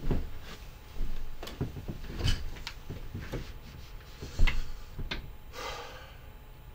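Scattered knocks, thuds and rubs of a person settling in at a desk: footsteps, an office chair moved and sat in, and headphones handled and put on. The loudest thump comes about four and a half seconds in, followed by a short rustle.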